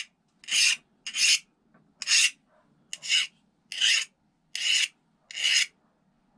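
Hand file drawn across a freshly oil-quenched knife blade made from a recycled saw blade, in about seven scraping strokes a little under a second apart. This is a file test of hardness: the file only takes off the black quench coating, because the steel underneath is hard.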